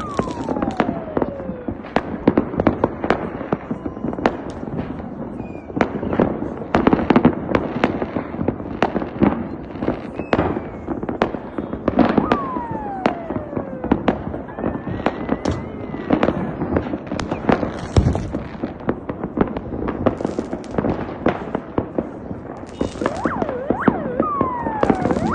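Fireworks going off: many sharp bangs and crackling pops at irregular intervals, with three falling whistles, at the start, about halfway and near the end.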